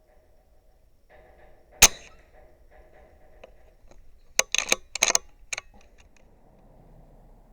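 A single sharp shot from a BSA Superten .22 pre-charged pneumatic air rifle about two seconds in. A couple of seconds later comes a quick run of clicks and rattles.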